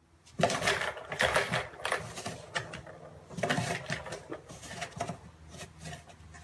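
Plastic balls rattling and rolling around the tiers of a plastic cat track tower toy as a cat's paw bats at them, in several bursts of rapid clattering.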